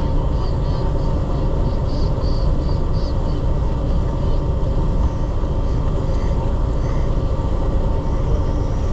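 Steady low rumble of a fishing boat underway: its engine running with wind buffeting the microphone.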